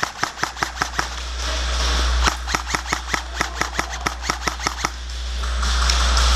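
VFC MP5A5 airsoft electric gun firing two strings of rapid shots, about six cracks a second: about eight shots, a pause of over a second, then about sixteen more.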